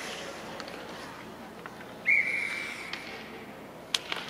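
A referee's whistle blows one short, steady, high blast about two seconds in, stopping play in an ice hockey game. A couple of sharp clacks follow near the end.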